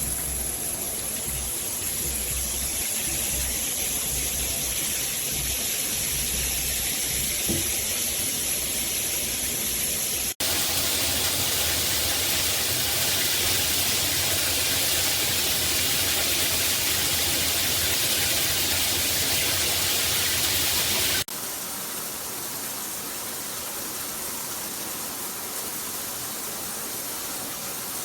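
Water spraying steadily from a NearMoon stainless steel rainfall shower head, a continuous hiss of falling water. The sound jumps abruptly about ten seconds in, to louder and brighter, and drops back about eleven seconds later to a quieter, duller hiss.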